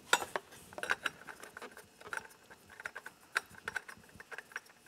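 Light, irregular clicks and taps as a gloved hand spins a new oil filter onto a Honda CBR600RR engine.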